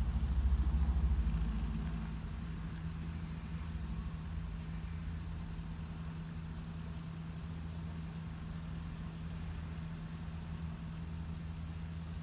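Engine idling with a steady low hum, a little louder for the first two seconds, then even.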